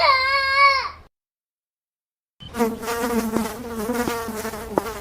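A wavering, high-pitched crying sound ends about a second in. After a short silence, an insect's buzzing starts and runs steadily with a slightly wavering pitch, like a fly or mosquito flying close by.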